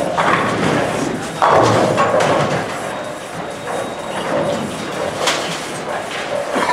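Bowling alley noise: thuds and clatter of balls and pins, with a sudden louder thud about a second and a half in.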